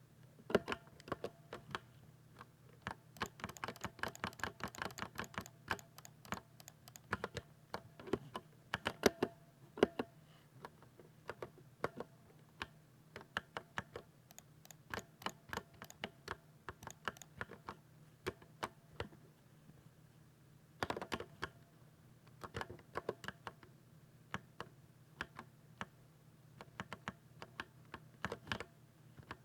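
Typing on a 60% keyboard: irregular runs of sharp key clicks, fast in stretches and pausing briefly now and then, over a faint steady low hum.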